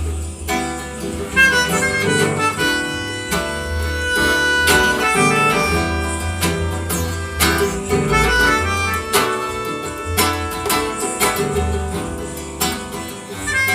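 Instrumental music: a melody on a reed instrument over plucked guitar and a pulsing bass line, with regular percussive strokes.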